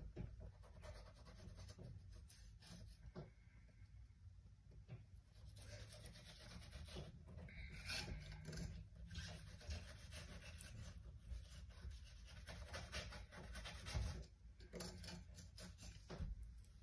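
Faint scraping and rubbing of a fillet knife sliding between perch skin and flesh against the work surface, coming in several stretches, with a few light knocks, the loudest about two-thirds of the way through.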